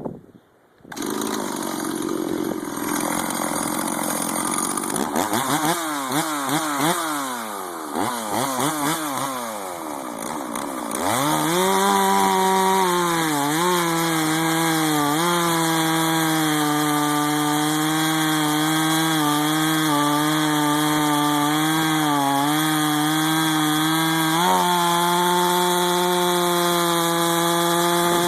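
West German Stihl 044 two-stroke chainsaw (12 mm piston pin) running. It comes in about a second in and is revved up and down several times. From about 11 seconds it is held at a steady high pitch at high revs, dipping briefly now and then.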